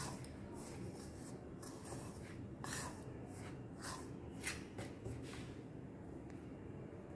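Spoon scraping and stirring hot rice-flour dough in a bowl: a run of short, irregular scrapes.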